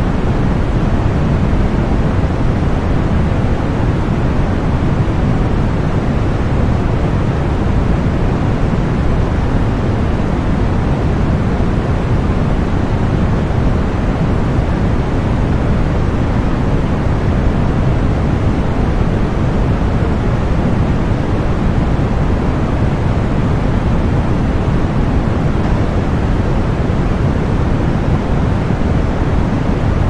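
Steady synthetic masking noise, sold as white noise for tinnitus relief, running evenly with no change at all. Its weight sits in the low end, so it sounds like a deep, even hiss rather than a bright one.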